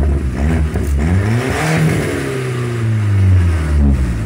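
VW Passat B5 1.8T's turbocharged four-cylinder engine being revved to test the freshly welded exhaust: a couple of short blips, then one rev rising about a second and a half in and falling slowly back toward idle.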